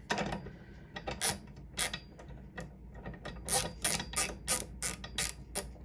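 Hand ratchet with a socket on a sight pusher's drive screw: sharp metallic clicks, a few scattered at first, then a quicker run of about four ratchet clicks a second in the second half.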